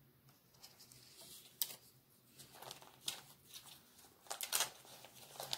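Light rustling and a scattering of short clicks and taps as paper craft embellishments are handled and set down on a felt-covered table, a little busier near the end.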